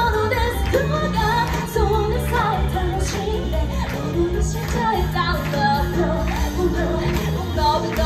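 A woman singing a pop song live into a handheld microphone, amplified, over pop backing music with a steady bass line.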